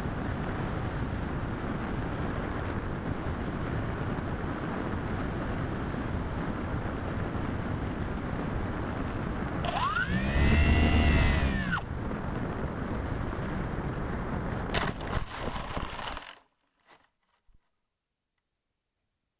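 Wind rushing over the microphone of a Bixler 3 foam RC plane's onboard camera in flight, with a brief burst of the electric motor about ten seconds in whose pitch rises and then falls. Rough knocks and scraping follow as the plane touches down in dry grass, then the sound cuts off to near silence.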